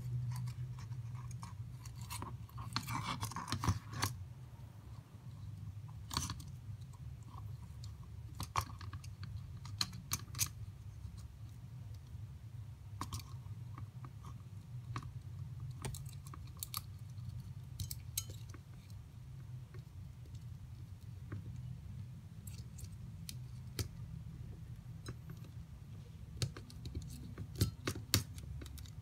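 Small plastic kit parts and wires being handled and fitted together: scattered light clicks and a short rustle of plastic pieces, with a cluster of sharper clicks near the end, over a steady low hum.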